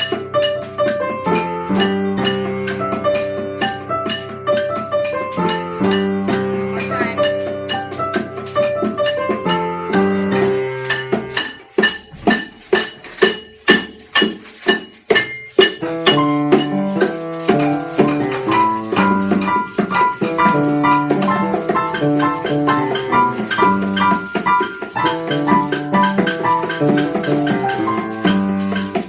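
Music from an electronic-style sound composition: layered sustained pitched notes changing in steps over a steady percussive pulse. Around the middle the notes drop away for a few seconds, leaving a string of regular hits at about two to three a second, before the notes return.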